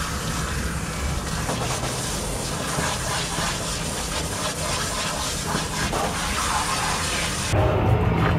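Water spraying from a hose nozzle onto a wet dog's coat in a dog-wash tub, a steady loud hiss. Near the end the hiss cuts off and a lower, louder sound takes over.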